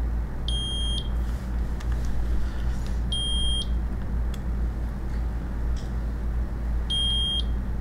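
Keto-Mojo GK+ blood glucose and ketone meters beeping during a test countdown: three short, high electronic beeps, the first about half a second in, the next a few seconds apart, over a steady low hum.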